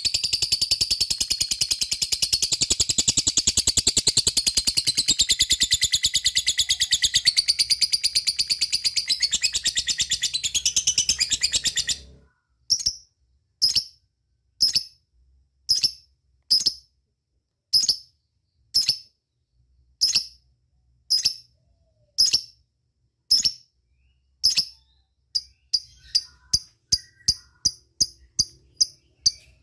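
Lovebird's long 'ngekek' chatter: a continuous, very rapid high-pitched trill that cuts off about twelve seconds in. Then single sharp chirps about once a second, quickening to about three a second near the end.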